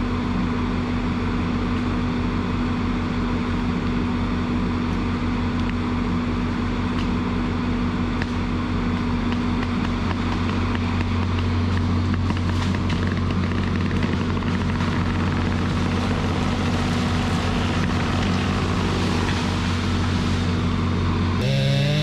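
Diesel engine of a John Deere tracked feller buncher running steadily under load while its saw head cuts and handles a tree. Near the end the sound changes, and a higher, wavering engine note comes in.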